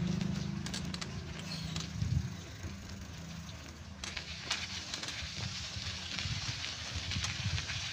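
Footsteps on a concrete and gravel path, as irregular short scuffs and clicks, with a low engine hum fading out over the first two seconds. A hiss, like wind on the microphone, rises from about halfway through.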